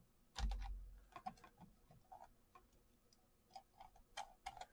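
Faint, irregular clicks from a computer mouse and keyboard, about a dozen spread over a few seconds, as a spreadsheet list is sorted and copied. A dull thump comes about half a second in.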